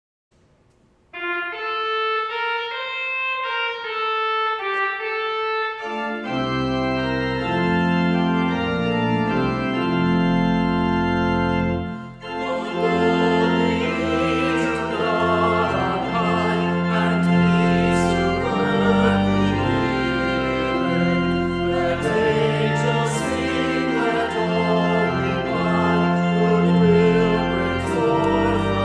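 Church organ playing a slow piece of held notes: a single melody line at first, joined about six seconds in by full chords and a bass line, and fuller and louder after a brief dip around twelve seconds.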